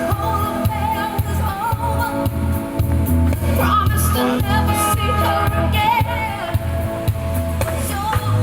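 A song playing: a singer's voice holding and bending notes over a pulsing bass line.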